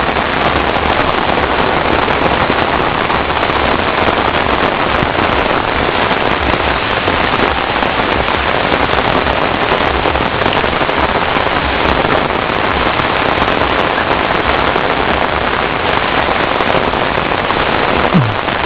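Heavy rain falling steadily on the vegetation: a dense, even hiss with a fine crackling patter of drops.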